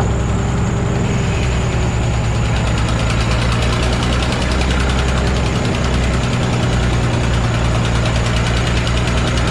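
An engine running steadily, with a rougher, noisier sound joining in about a second and a half in.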